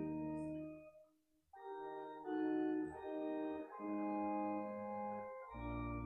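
Two-manual church organ playing slow sustained chords, with a brief pause about a second in before the next phrase begins. The low bass notes drop out for a couple of seconds and come back near the end.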